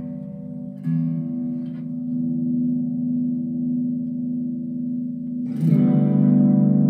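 Epiphone Les Paul Modern Figured electric guitar played through an amp: chords strummed and left to ring, struck again about a second in and once more, louder, near the end.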